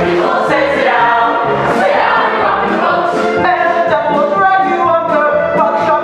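Choir singing a Broadway show tune with musical accompaniment.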